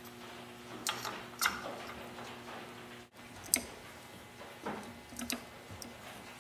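Scattered sharp metallic clicks and taps of small motor parts and hand tools being handled at a bench vise, the loudest about three and a half seconds in. A faint steady hum stops abruptly about three seconds in.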